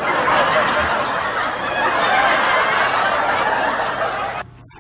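Loud laughter close to the microphone, a continuous noisy laugh that cuts off abruptly near the end.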